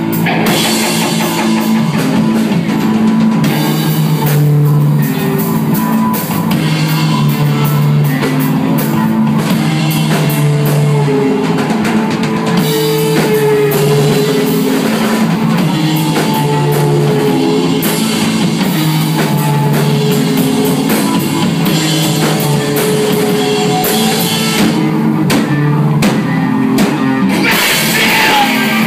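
Live rock band playing loudly: drum kit, electric guitar and bass guitar.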